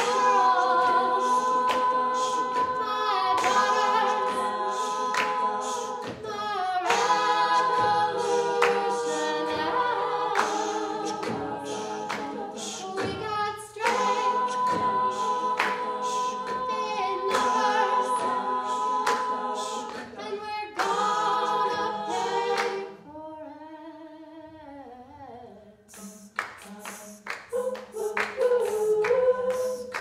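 Women's a cappella group singing, a lead voice over backing vocal harmonies, with sharp percussive hits keeping the beat. About 23 seconds in it drops to a quieter held chord that slides downward, then the beat and the lead come back near the end.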